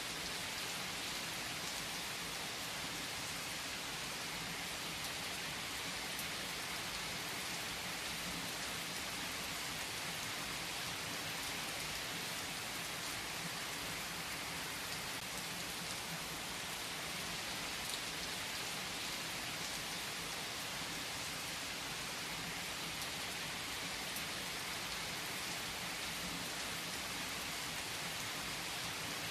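Steady rain falling: an even hiss of drops that stays level throughout.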